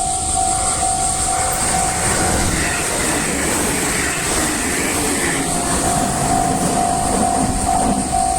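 A level-crossing warning bell rings in a steady repeating pattern while a train passes over the crossing. The train's rumble and wheel noise swell from about two seconds in and largely drown the bell. The bell comes back clearly about six seconds in as the train goes by.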